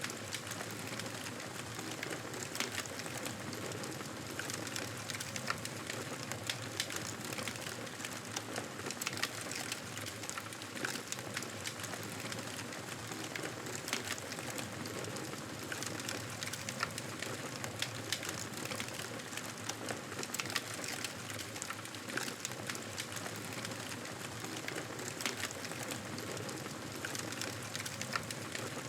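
Wood fire crackling in a fireplace: a steady hiss with frequent sharp pops and snaps scattered throughout.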